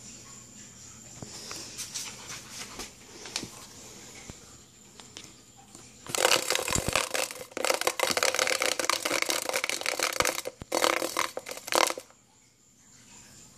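A large winged insect in a plastic tub, buzzing and fluttering its wings against the plastic in a loud, harsh, rattling burst that lasts about six seconds and stops suddenly. Before it there are a few faint scratches and clicks as it moves about.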